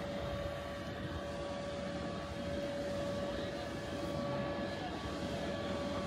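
Electric blower fans keeping giant inflatable sculptures up, running with a steady hum and a constant whine, over a low rumble.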